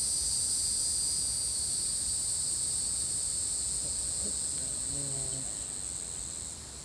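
Steady, shrill chorus of insects singing in several high bands, easing off a little near the end.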